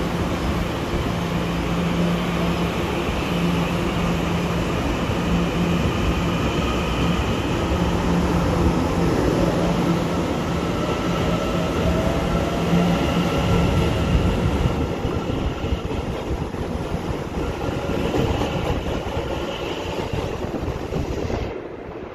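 Taiwan Railways electric express train moving past the platform at close range: steady running noise with a low pulsing hum. A faint rising whine comes in midway, and the sound thins out in the last few seconds.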